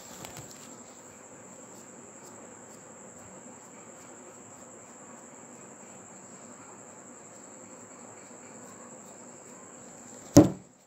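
Steady high-pitched cricket trill over faint room hiss, with one sharp knock near the end as the phone is handled.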